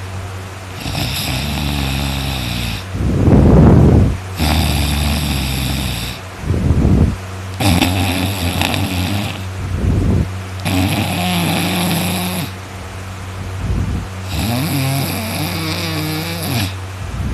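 A person snoring loudly in a regular rhythm, about one breath every three seconds, each cycle with a louder short snort, over a steady low hum.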